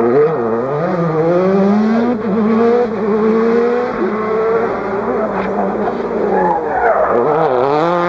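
Rally car engine at full throttle, its pitch climbing through the revs and dropping back at each of about three gear changes as the car accelerates away along the stage.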